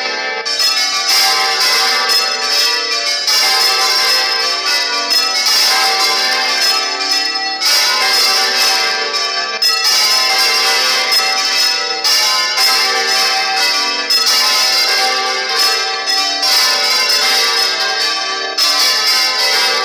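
Several church bells swinging full circle on counterweighted headstocks in a general peal (Spanish-style volteo), their strokes overlapping in a loud, continuous clangour.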